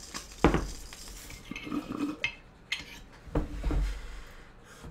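Glass bong being handled: several sharp clinks and knocks of glass, the loudest about half a second in.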